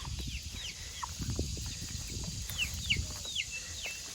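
Chickens chirping: a run of short, high, falling peeps, over low rustling of movement.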